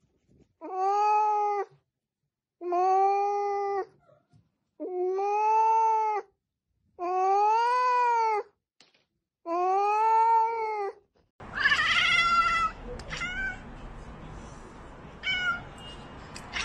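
A domestic cat meowing: five long, drawn-out meows with short silences between them, each rising and falling slightly in pitch. Near the end, against a steady background hiss, a cat gives one more call and then a few short chirps.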